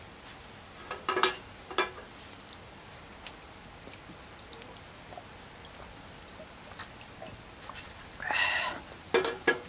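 Steady patter of rain, with two light knocks about a second in, a short pitched sound a little before the end, and two more knocks right at the end.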